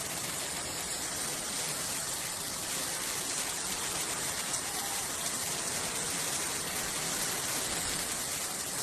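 Heavy rain pouring down in a steady, even hiss, a downpour from a severe convective storm.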